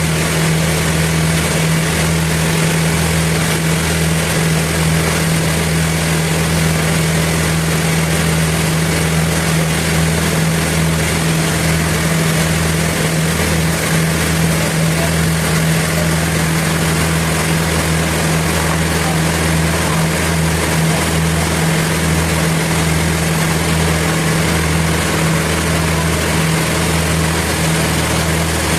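Sawmill machinery running steadily: a constant low engine drone under an even rushing noise, with no break or change.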